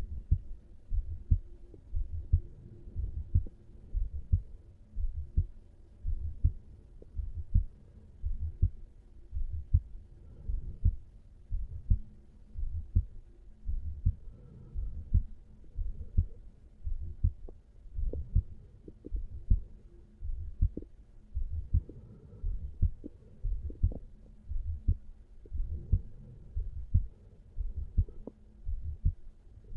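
Heart sounds of a resting 35-year-old man, recorded over the mitral (bicuspid) valve area: steady lub-dub beats at about one a second, with a faint hum underneath.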